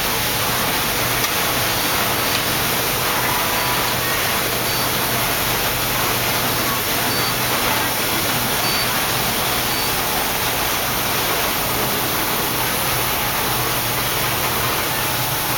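Steady hiss of factory machinery with a low steady hum. A few faint, short, high beeps come between about four and ten seconds in.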